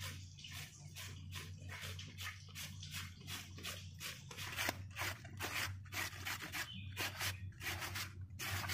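A raw potato being grated on a stainless-steel hand grater into a steel plate: faint, rhythmic scraping strokes, about two or three a second.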